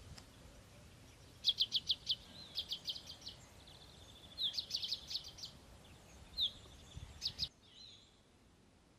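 A small songbird singing: several phrases of quick, high, repeated notes, cut off sharply about seven and a half seconds in.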